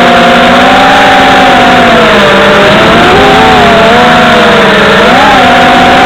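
FPV racing quadcopter's electric motors whining, several tones rising and falling together as the throttle changes, with a quick upward swoop about five seconds in.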